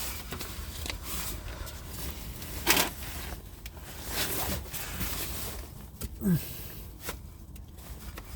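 Irregular clicks and knocks of metal parts and tools being handled in a car engine bay, with one sharper knock about a third of the way in and a brief falling tone a little past the middle.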